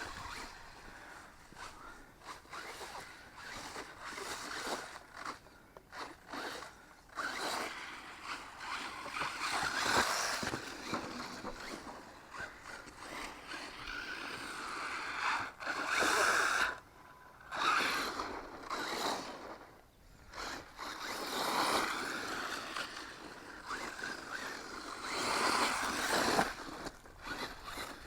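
An electric RC truck (JLB Racing Cheetah, a brushless 1/10 truggy on a 2S LiPo) being driven over grass and rough ground. Its motor and tyres give a buzzing, scrabbling noise that swells and fades every few seconds as it speeds up and slows.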